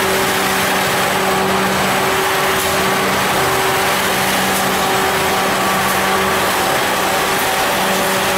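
Popcorn-processing machinery with a rotating drum running steadily: a constant machine hum holding several fixed tones over a steady hiss.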